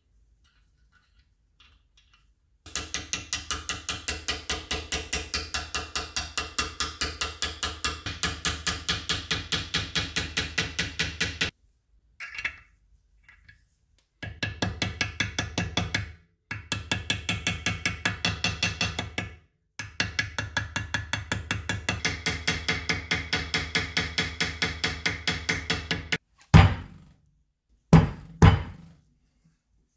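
Small hammer tapping a dented thin sheet-metal screwdriver ferrule over a shaping tool, to reshape it. The blows are rapid and evenly spaced and come in long runs with short pauses. Near the end come two heavy thumps.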